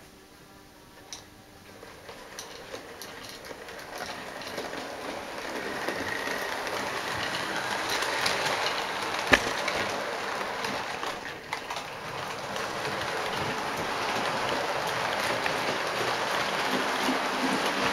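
Model railway train running along the track, an even rattling hiss that grows louder over the first several seconds as the locomotive and coaches come past, with a single sharp click about nine seconds in.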